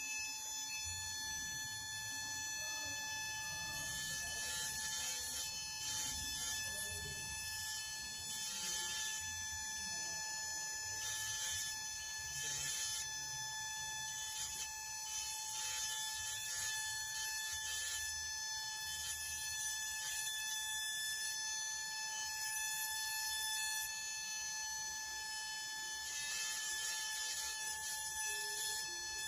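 A small high-speed motor whining at a steady high pitch, with short bursts of hissing noise coming and going over it.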